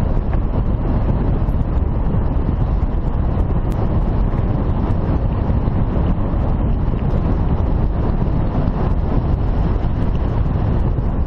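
Steady wind noise on a helmet-mounted action camera's microphone over the rolling and rattling of a mountain bike on a dirt trail, with scattered small clicks.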